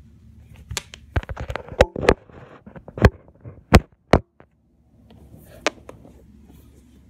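Handling noise from a handheld recording device being grabbed and moved: a run of sharp knocks and clicks with rustling, loudest in the first four seconds. A moment of dead silence follows, then faint rustling with one more click.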